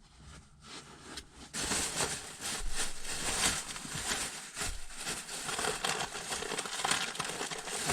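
Rustling and crinkling of gear being handled, starting about a second and a half in and going on as a busy, irregular crackle: gloves and packaged hand warmers being shown.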